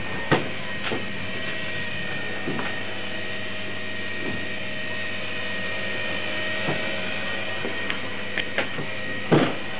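Small electric radio-controlled helicopter hovering, its motor and rotor giving a steady high whine. A few short knocks sound over it, the loudest near the end.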